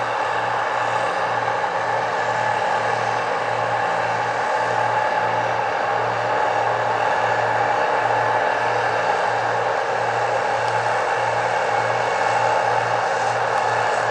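Engine running steadily, a loud even drone with a low throb pulsing about twice a second.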